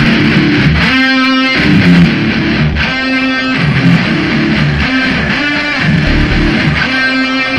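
Rock intro music led by electric guitar, with a held note coming back about every two seconds.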